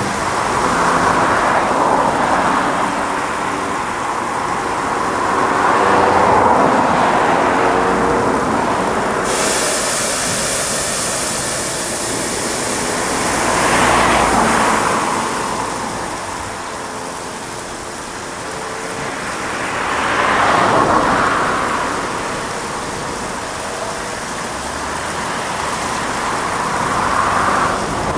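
Automatic rollover car wash gantry running over a car: a steady machine and spraying noise that swells and fades about every six to seven seconds. A higher hiss cuts in suddenly about nine seconds in.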